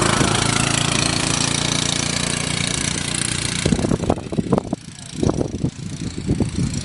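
Yamaha golf cart's gas engine running as the cart pulls away, loud at first and then dropping away a little under four seconds in; irregular low rumbles follow.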